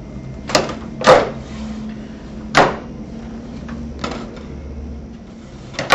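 A French door shutter panel being pushed shut and tugged open against its adjusted roller catch: five sharp clacks, irregularly spaced, the loudest about a second in.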